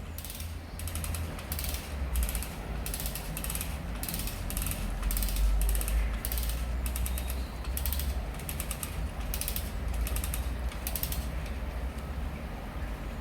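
Winch ratcheting as the rope is wound in: short bursts of rapid pawl clicks, about one a second, over a steady low rumble.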